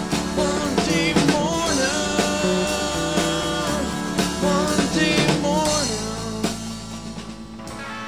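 Rock band recording playing the closing bars of a song, with drums, bass and guitars under a wavering lead melody. About two-thirds of the way through the drums drop out and the last chord rings on, fading.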